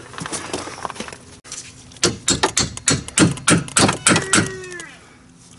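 Hammer driving a leaf-spring bolt through new suspension bushings: a fast run of sharp metal strikes, about five a second, after a couple of seconds of lighter clicking. The last strike rings briefly.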